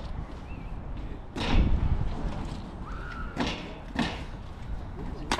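A series of heavy thuds and knocks, the loudest about a second and a half in and a sharp crack near the end, over a low steady rumble.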